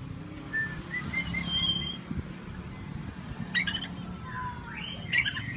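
Oriental magpie-robin singing: scattered clear whistles, a quick falling sweep, a held high note, and short harsh chattering notes about three and a half and five seconds in.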